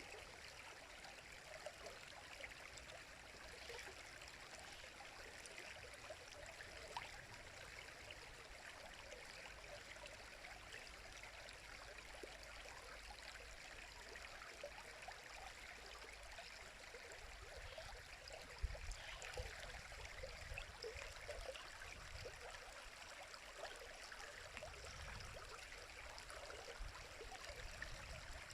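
A river running: a steady, faint rush of flowing water. From about halfway through, a low rumble comes and goes underneath it.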